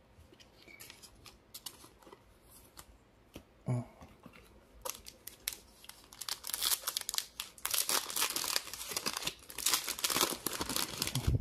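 Wrapper of a 2023 Bowman Baseball hobby card pack being torn open and crinkled by hand: a dense run of crackling rips from about five seconds in, after a stretch of light handling ticks and a single knock just before four seconds.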